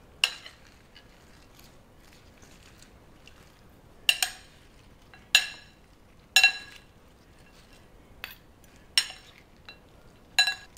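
Two metal serving spoons clinking against a ceramic bowl while tossing a salad: about seven sharp, ringing clinks at uneven intervals a second or more apart.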